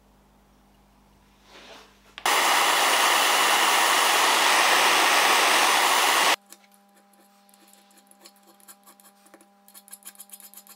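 Handheld gas torch flame hissing loudly and steadily for about four seconds as it heats the end of a copper pipe, starting and stopping abruptly. Near the end, a small file rasps across the copper in quick strokes.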